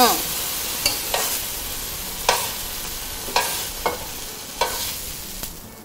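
Luffa slices sizzling in a wok, the sizzle fading as the heat is off, with a spatula scraping and tapping against the pan about seven times as the slices are lifted out.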